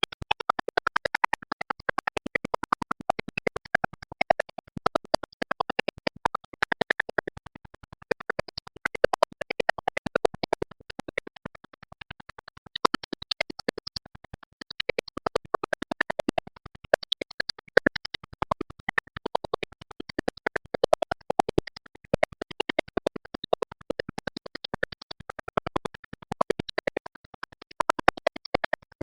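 Music with a fast, choppy, stuttering pulse.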